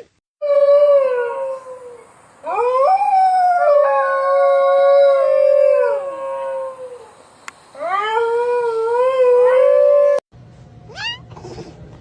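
Animals howling: several long, drawn-out howls, two or more voices at once, rising and falling in pitch. They cut off abruptly about ten seconds in, and a short rising call follows over a faint low hum.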